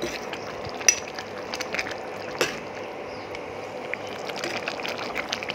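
Thick kidney-bean curry boiling in a pot on a high gas flame, its gravy bubbling with small irregular pops over a steady hiss, with a couple of sharper pops about one and two and a half seconds in.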